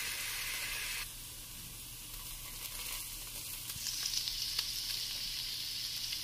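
Hot oil in a stainless steel wok sizzling as minced garlic is dropped into it. The sizzle dies down about a second in, then swells again with crackling from about four seconds in.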